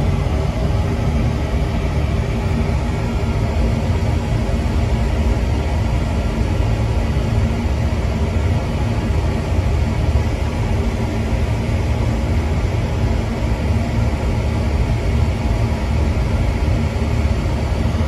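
Beckett oil burner firing on a Slant/Fin Intrepid oil-fired cast iron boiler: a loud, steady rumble of flame and blower with a low hum underneath.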